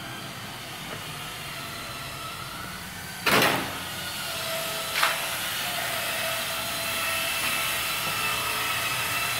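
A steady hiss with faint humming tones, broken by a loud bang about three seconds in and a shorter, lighter knock about two seconds later.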